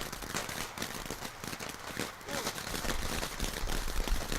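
Small consumer firework hissing and crackling, with wind buffeting the microphone near the end.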